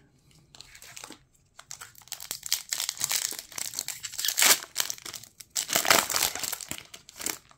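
Foil Pokémon booster pack wrapper crinkling as it is handled and torn open, with the cards then pulled out through the crackling foil. Irregular crackle that starts about half a second in, with the loudest bursts in the middle and near the end.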